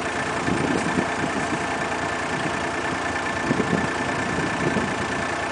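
Steady hum of an idling engine with a faint high whine, broken by a few brief louder rustles about a second in and around three and a half seconds.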